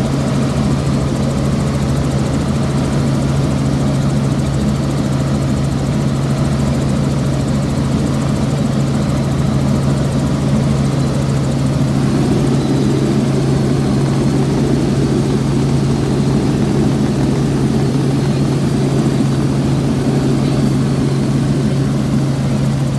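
Helicopter in flight: a steady engine and rotor drone with a constant low hum, growing a little fuller about halfway through.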